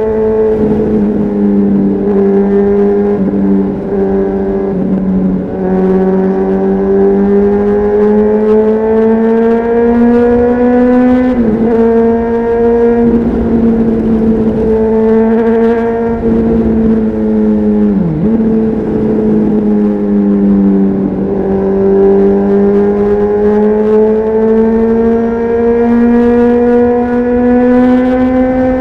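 On-board sound of a Honda CBR600RR's inline-four through a Leo Vince aftermarket exhaust, riding under steady throttle. The engine note climbs slowly over long stretches, with a few short dips in pitch and a deeper one about eighteen seconds in.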